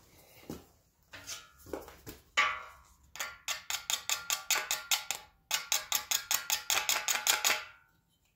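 Metal striking metal with a ringing clink: a few scattered strikes, then two fast, even runs of about seven clinks a second with a short break between them. The rate fits sped-up forge footage.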